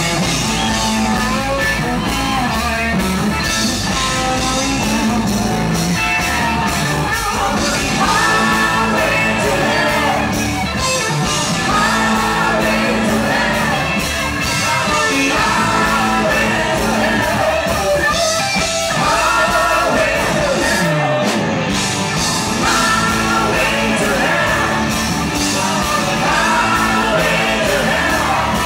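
Live rock band playing, with electric guitar, drums and singing over the band.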